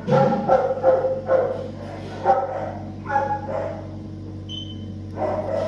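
Dogs barking and yipping in short repeated calls, pausing for about a second and a half before starting again near the end, over a steady low hum.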